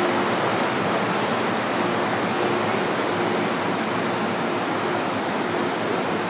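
Steady rushing noise of an MTR M-Train standing at an underground platform with its doors open, its air-conditioning and auxiliary equipment running, with a faint hum that comes and goes.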